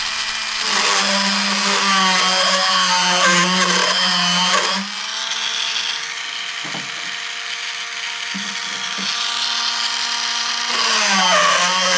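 Handheld rotary tool with a burr bit running as it burrs out a hole in a wooden bulkhead, a steady motor whine. The whine is lower and louder for the first five seconds and again near the end, higher and lighter in between.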